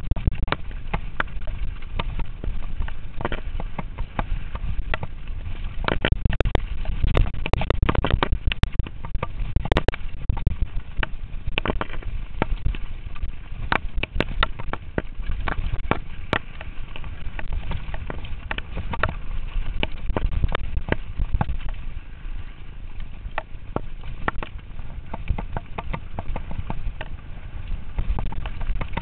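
Mountain bike descending a rough dirt trail at speed: wind rumbling on the microphone and a continuous rattle of knocks and clatter as the bike bounces over ruts and bumps, heaviest about six to ten seconds in.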